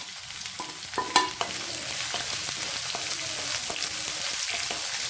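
Sliced onions sizzling in hot oil in a kadai as they are stirred, with a metal spoon clinking against the pan a few times in the first second or so.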